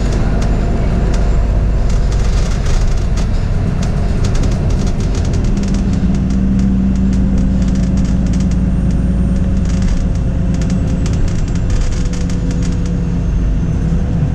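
Bus running at speed, heard from inside the cabin: a steady low engine and road rumble with constant clicking and rattling from the interior. A stronger engine drone comes in midway and holds for several seconds.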